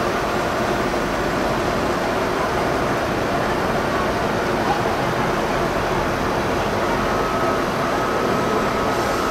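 R32 subway train running with a steady noise. A thin, steady high tone joins about seven seconds in.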